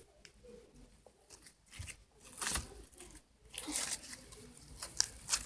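Clear-glue slime being handled by hand: faint, soft crackles and tearing sounds as it is stretched and squished, coming a few times.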